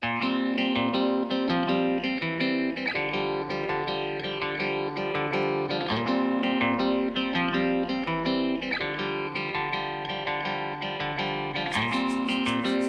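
Background music led by guitar, starting abruptly, with a bright regular ticking beat joining near the end.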